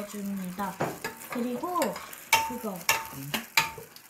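A metal spoon stirring a thick yogurt and spice marinade in a glass dish, scraping and clinking against the glass. Near the end, three sharp knocks of the spoon on the dish, two of them leaving a brief ring.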